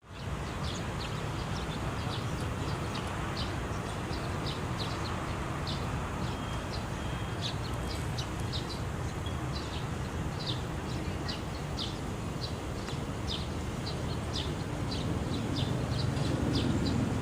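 Small birds chirping, short high calls several times a second, over a steady low rumble like distant traffic.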